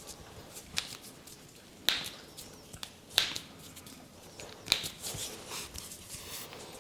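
A masseur's hands making sharp slaps and snaps during a head massage: about five separate cracks at uneven intervals, with faint rubbing between them.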